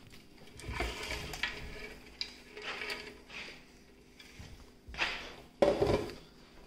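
Cauliflower pieces tipped from an air fryer basket into a nonstick frying pan of sauce, with the basket and a plastic spatula knocking and scraping against the pan. There are a few light clatters, then the loudest clatters come near the end.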